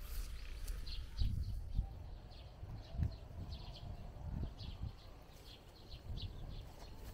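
Small birds chirping in short repeated calls, with a few low thumps.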